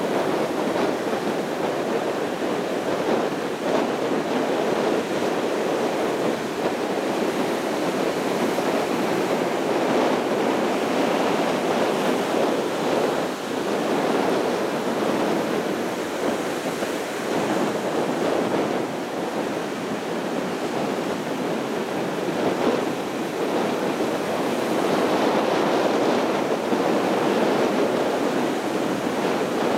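Sea surf washing onto a sandy beach: a steady rush that swells and eases a little.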